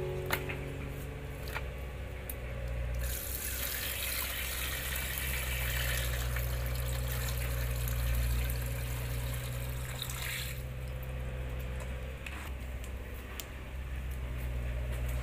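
Tap water running into a plastic basin of snakehead fish as they are washed, a steady splashing hiss that stops about ten seconds in. A few small knocks and splashes of handling come before it.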